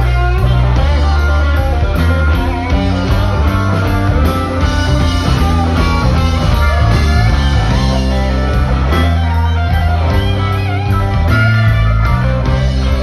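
Live blues band playing: an amplified blues harmonica cupped against a microphone, its notes bending, over electric guitar, bass and drums.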